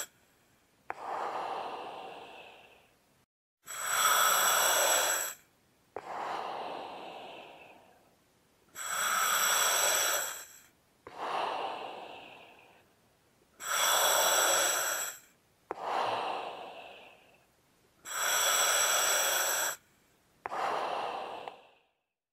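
Slow, heavy breathing in a steady cycle about every five seconds. Each cycle is a loud, hissing in-breath of over a second, then an out-breath that starts with a click and fades away over about two seconds. The breathing stops shortly before the end.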